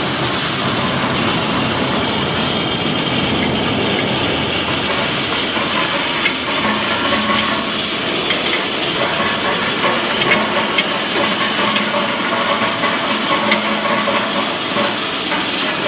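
OLIVINOX 300 mini continuous olive-oil machine running: a loud, steady mechanical noise with a few scattered knocks.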